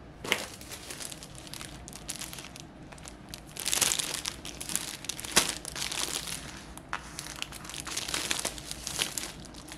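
Paper-and-plastic wrapping of a sub sandwich crinkling and rustling as it is handled, in irregular spells, loudest about four seconds in, with a sharp crackle a little after five seconds.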